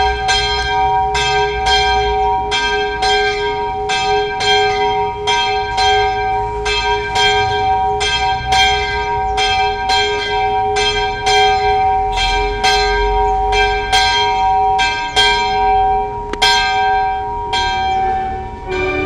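A single church bell, brought from Germany in 1863, ringing steadily at about three strokes every two seconds. Each stroke sounds over the same long ringing hum of the bell.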